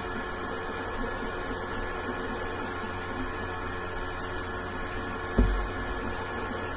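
Steady electrical hum with several fixed tones, broken by a single short low thump about five seconds in.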